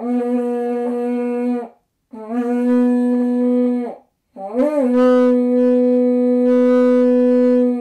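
Three long, steady, loud blasts on a large seashell trumpet with a metal mouthpiece, blown as a shofar. The third blast is the longest and starts with an upward scoop in pitch before holding steady.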